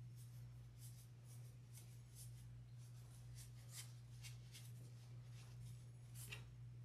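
Faint rustling and scratching of fiberfill stuffing and felt as the stuffing is pushed by hand into a sewn felt leg, about two soft scratches a second, over a steady low hum.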